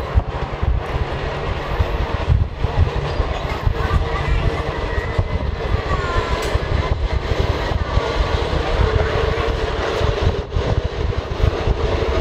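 Pier-2 miniature ride-on train running on its track: a continuous low rumble of the wheels on the rails, with a steady whine from about four seconds in and brief wheel squeals around the middle.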